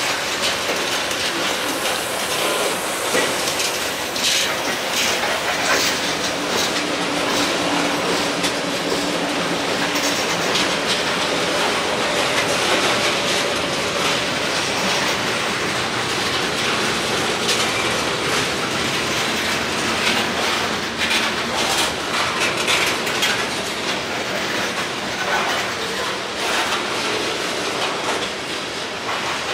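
Freight cars, covered hoppers and then a tank car, rolling past close by: a steady rumble of steel wheels on rail with repeated clicks as the wheel sets cross the rail joints. A faint wheel squeal is held for a few seconds early in the passage.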